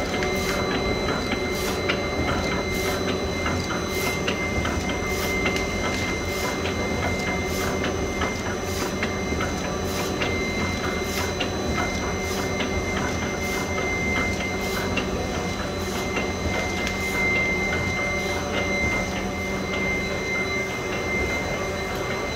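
Roll-fed label printing press with UV, lamination and die-cutting units running steadily: a constant mechanical drone with a high steady whine and a regular click about three times every two seconds.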